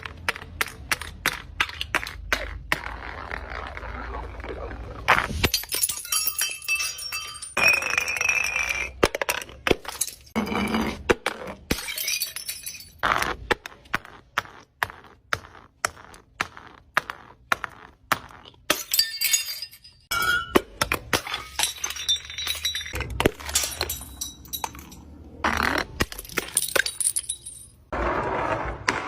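Glass being broken and crushed: many sharp cracks and crunches in quick succession, some leaving ringing clinks from the shards.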